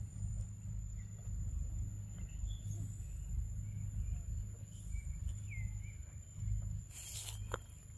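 Forest ambience: a thin, steady, high insect drone with scattered short bird chirps over a low rumble. A brief crackling rustle comes about seven seconds in.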